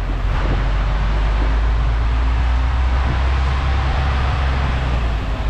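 Diesel engine of an HGV tractor unit running steadily as the articulated lorry moves off at low speed, with a strong low rumble and road and tyre noise heard from outside the open cab.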